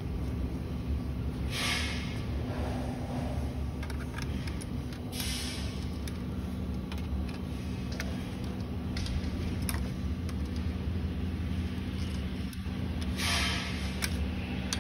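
Light metallic clicks and rustles from the tubular steel frame and fabric seat of a swing chair being fitted together by hand, over a steady low hum. A few short bursts of hiss come about two, five and thirteen seconds in.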